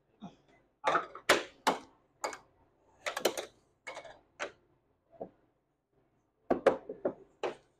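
Plastic air hockey puck being struck by mallets and clacking off the table's rails: a dozen or so sharp clacks in irregular bursts, with a short lull before a quick flurry near the end.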